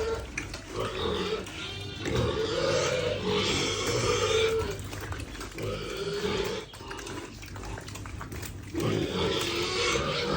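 Piglets squealing and grunting as they feed: bouts of pitched, wavering squeals over a noisy bed of grunts. The squeals ease off for a few seconds past the middle and come back louder near the end.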